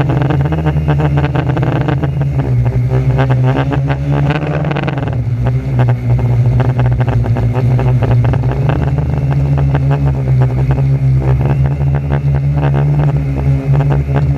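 Electric motors and propellers of a 450-size quadcopter, recorded on board, droning steadily in flight; the pitch dips about five seconds in as the throttle changes.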